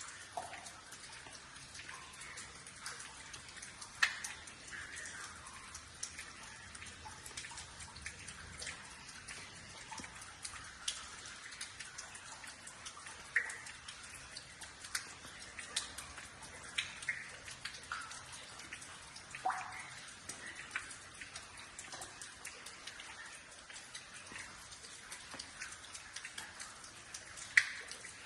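Water dripping: irregular single drops falling, some landing with short pitched plinks, over a faint steady hiss.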